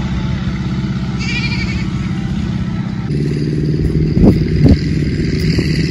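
A small engine running steadily, its note getting fuller and busier about three seconds in, with two sharp knocks soon after. A goat bleats briefly about a second in.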